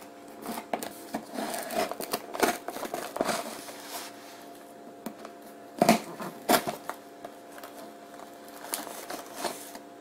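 Kitchen knife slicing through packing tape on a cardboard shipping box: irregular scraping and crackling of the tape, with sharp clicks, the two loudest about six seconds in.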